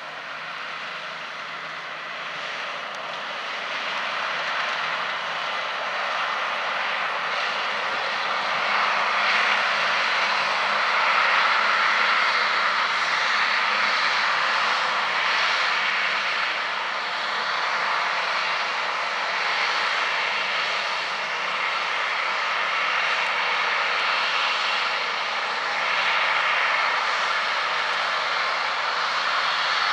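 Heavy harvest machinery running with a steady engine and machinery noise that grows louder over the first ten seconds or so as it comes closer, then holds.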